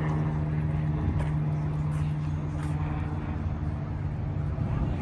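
First-generation Ford Mustang coupe's engine running at a steady idle as the car creeps slowly along; the steady engine note drops away near the end.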